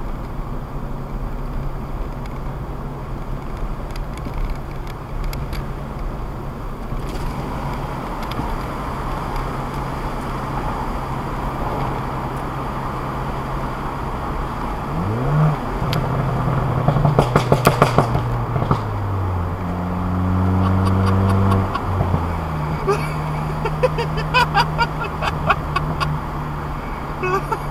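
Tuned Ford Fiesta ST engine and exhaust, heard from inside the car. It runs steadily, revs up past the middle, and lets out a rapid string of loud exhaust crackles and pops. The engine note then climbs again, and a second burst of crackles comes near the end. The loud crackles are the sign of the Stratified flash tune.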